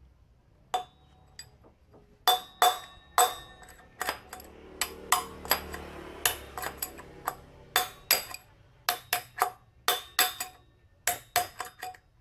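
A steel rod knocking down on a worn motorcycle wheel bearing inside the wheel hub, driving it out: a run of sharp, ringing metal-on-metal clanks, irregular, about two a second.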